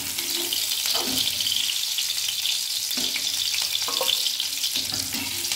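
Onion pieces sizzling in hot mustard oil in a kadhai. A spatula scrapes against the pan a few times as the onions are lifted out.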